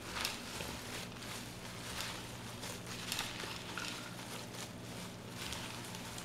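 Hands tossing fresh salad leaves and herbs in an earthenware bowl: irregular rustling as handfuls of greens are lifted and dropped, over a faint steady hum.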